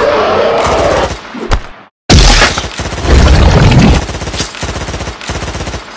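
Sound-effect machine-gun fire: rapid shots in dense bursts, breaking off for a moment about two seconds in, then resuming louder and thinning out toward the end.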